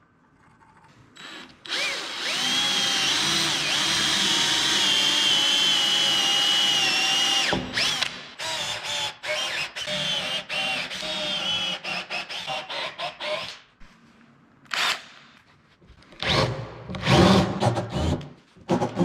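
Cordless drill drilling into an ash benchtop: a steady motor whine for about six seconds, then a string of short trigger-pulsed bursts, and near the end several louder, choppier bursts.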